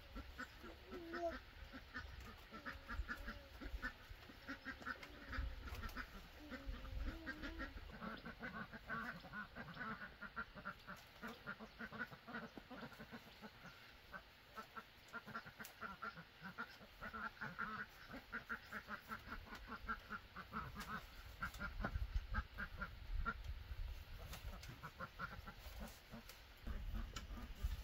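Ducks quacking in a long run of short, rapid calls, with bamboo strips rustling and tapping as a cage-basket is woven by hand.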